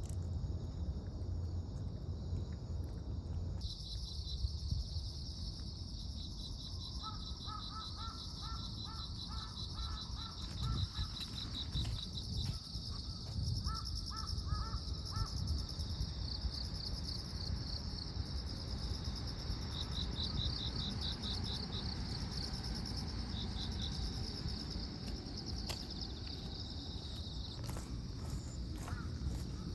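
Outdoor ambience: insects trilling in pulsed bursts, with a crow cawing in two runs of short calls about a quarter and half of the way in, over a steady low rumble of wind.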